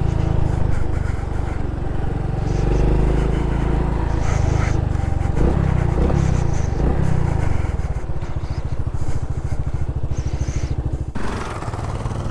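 Honda Pop 110i's small single-cylinder engine running. About eight seconds in, its note changes to a slower, even pulsing and gets a little quieter.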